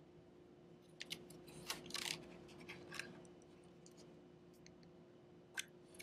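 Faint, short plastic clicks and scrapes of fingers working a small internal cable connector loose from an iMac's logic board, several in quick succession a second or so in and one more near the end, over a faint steady hum.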